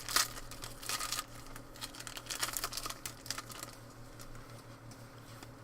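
A trading card pack's wrapper being torn open and crinkled by hand, a quick run of crackles and tearing over the first three seconds or so, then quieter handling.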